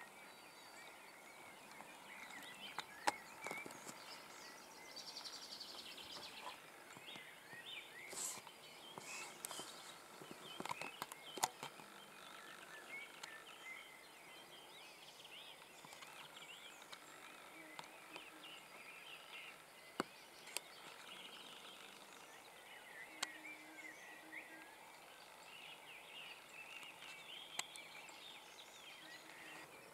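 Faint field ambience of small birds chirping and singing, with a few sharp clicks now and then.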